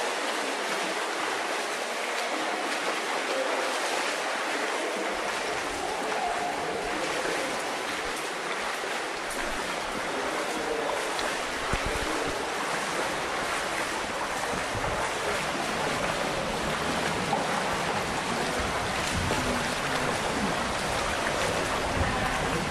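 Steady rushing of waterfalls, an even hiss of falling water that does not let up; a low rumble joins about five seconds in.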